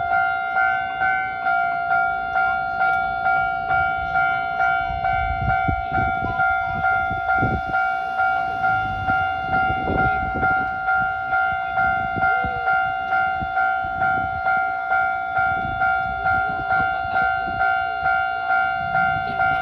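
Japanese level-crossing warning bell ringing steadily, an electronic ding repeating about one and a half times a second, signalling that a train is coming. A low rumble rises and falls in the middle.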